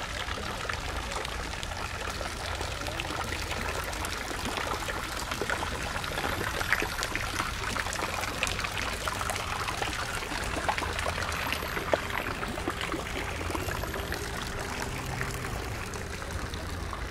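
Running water pouring and splashing steadily, a little louder in the middle.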